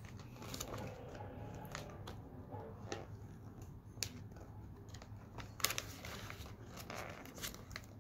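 Paper sticker sheet being bent and peeled: faint crinkling and peeling of paper, with several short sharp clicks and crackles scattered through.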